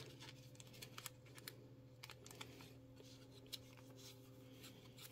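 Faint, scattered clicks and rustles of a trading card being slid into a soft plastic penny sleeve, over a steady low hum.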